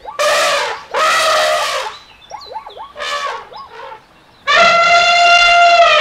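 Elephant trumpeting: two short blasts, then a few softer wavering calls, and a long steady trumpet starting about four and a half seconds in.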